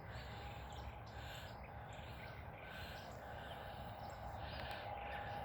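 Faint outdoor ambience: distant small birds chirping now and then over a low steady rumble, with a thin steady tone that grows clearer near the end.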